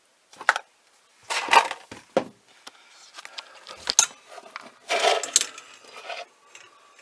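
Handling noises while soapy water is put on new propane line fittings to test for leaks. Scattered clicks, knocks and rustling come in several short bursts, with a sharp click about four seconds in.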